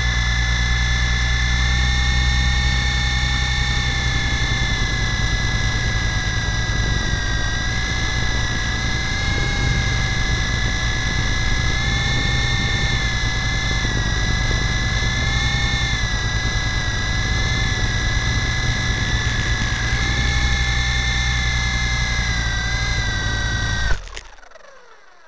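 Lama V4 RC helicopter's electric motors and rotors, heard from on board, whining steadily with a slightly wavering pitch over a low buzz. Near the end there is a thump as it comes down in the snow, and the motors cut off and wind down.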